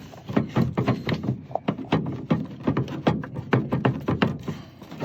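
Irregular clicks and knocks of hard plastic, several a second, as the rear light cluster is worked loose from its retaining clip.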